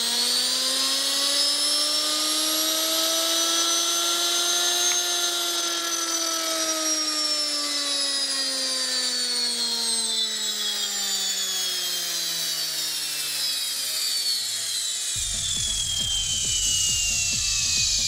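Balay/Bosch washing-machine brushed universal motor running unloaded, wired straight to the mains. Its whine rises in pitch as it speeds up for about five seconds, then falls slowly as it winds down, with a hiss from the carbon brushes above it. Near the end a low rubbing noise joins in as the spinning shaft is grabbed by hand.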